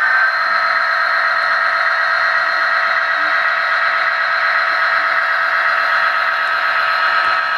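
HO-scale model turntable's drive motor and gearing giving a steady, high whine as the bridge slowly turns a model steam locomotive.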